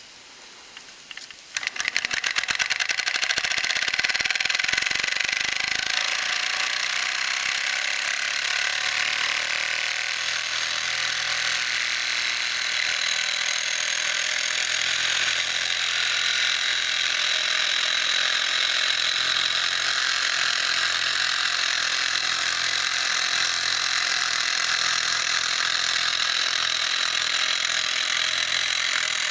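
S.E.L. 1520 "minor" toy steam engine running fast, its cylinder and flywheel making a rapid, even clatter over a steady steam hiss. It picks up speed about a second and a half in and then runs steadily.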